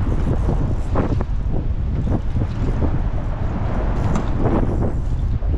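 Wind buffeting the action camera's microphone over open water, a steady low rumble, with a few brief sharper sounds about a second in and around four seconds in.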